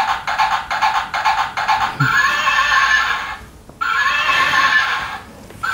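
Recorded horse sound effect: a fast, even clip-clop of galloping hooves for about two seconds, then two long whinnies, with a third starting at the very end.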